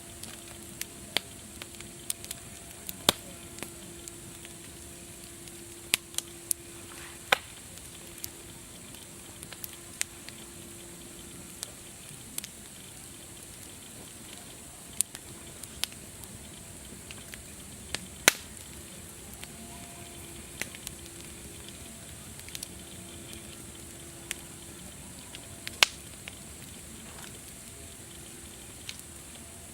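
Wood fire crackling: sharp snaps and pops at irregular intervals over a steady hiss.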